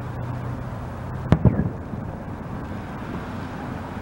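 A firework going off with one sharp bang a little over a second in, quickly followed by a couple of smaller pops.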